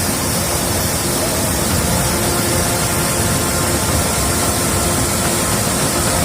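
A steady, loud rushing noise spread evenly across all pitches, like a hiss or wash of white noise, with faint held music notes beneath it.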